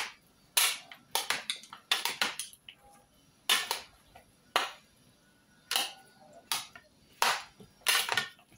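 Metal spoon and fork clinking and scraping against a glass bowl while a fruit and vegetable salad is tossed. There are a dozen or so sharp, irregular clinks, roughly one every half second to a second.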